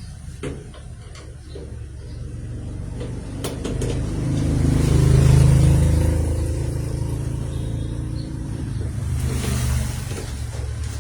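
A low, steady mechanical rumble that swells to its loudest about five seconds in, then eases back to a steady level, with a few light clicks near the start.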